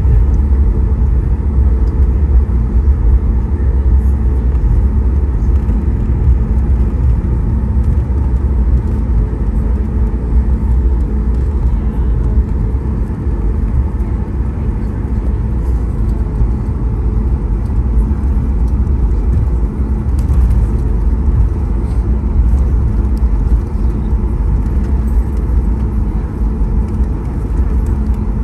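Cabin noise of a Boeing 737 MAX 8 taxiing, heard inside the cabin: a steady low rumble from its CFM LEAP-1B engines at idle and its wheels rolling over the taxiway.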